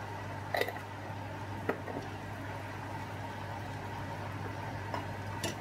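Wooden spoon stirring a thick creamy sauce in a stainless steel pan, with three light knocks of the spoon against the pan, over a steady low hum.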